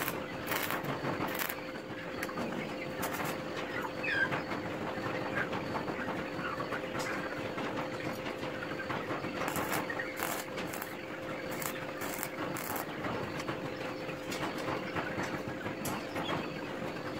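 Stick welding of steel rods: the electric arc's steady crackle and sizzle with a constant hum underneath, the arc breaking off and restriking now and then.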